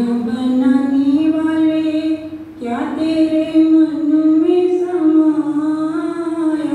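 A woman singing a Hindi devotional bhajan into a microphone, a single voice drawing out long held notes. She takes a brief breath between phrases about two and a half seconds in.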